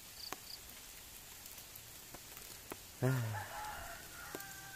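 Steady rain with scattered drip ticks. About three seconds in comes a brief, low, falling voice sound, followed by a faint drawn-out call that holds a few steady tones until near the end.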